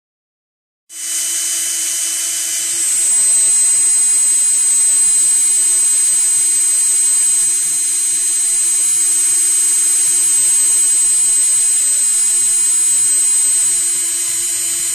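Power drill running steadily, drilling out a seized screw bound in resin in a model snow plough, with a steady high-pitched whine.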